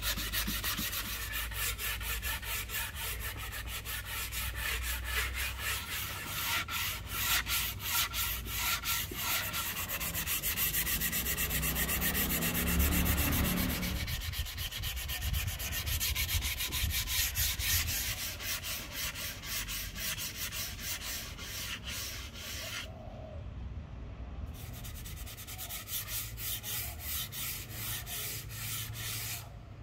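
Hand sanding of a black and white ebony axe handle with sandpaper on a round hand pad, in quick, even back-and-forth strokes. The strokes stop briefly about three-quarters of the way through, then resume.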